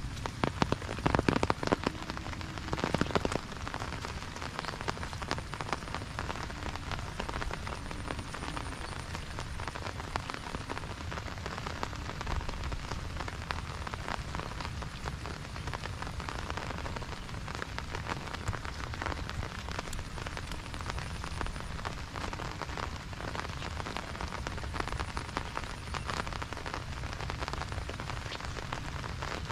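Steady rain falling, with a dense patter of individual drops. In the first few seconds there are two short clusters of louder, sharper drop hits.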